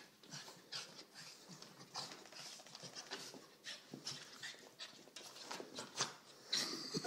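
A dog panting in short, irregular breaths, with a louder sound near the end.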